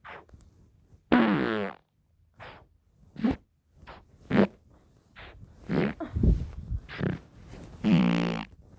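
A series of about ten short, pitched fart sounds with wavering pitch, separated by brief pauses; the longest and loudest come just after one second in and near the end.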